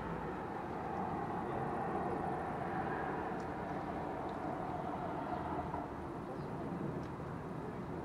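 Distant vehicle noise: a steady outdoor hum in which one engine swells and fades over a few seconds, with a few faint, short high ticks.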